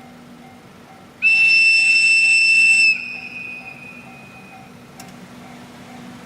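Electric locomotive's whistle: one long, high, steady blast of about a second and a half that starts abruptly, then carries on much weaker and fades out over the next two seconds.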